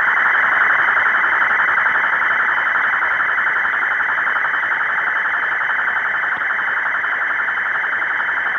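Steady radio static on the spacecraft's air-to-ground communications channel: a loud hiss with a fast warble through it and faint steady high tones above.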